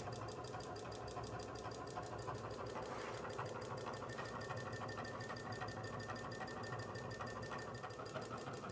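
Milling machine running, its end mill boring into a steel exhaust-adapter tube: a steady mechanical hum with a fast, even pulse and a faint high whine in the middle of the cut.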